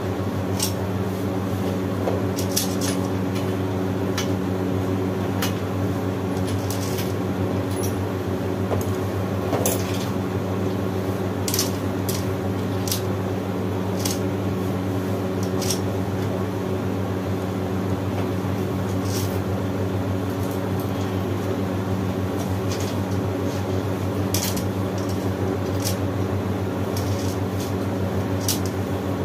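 A steady mechanical hum runs throughout, with scattered light metallic clicks and clinks, typical of tools and small parts being handled during a repair.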